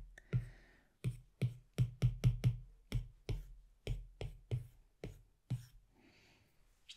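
Background music: a sparse electronic beat of short low thumps with a click on top, a few hits a second. It dies away about five and a half seconds in.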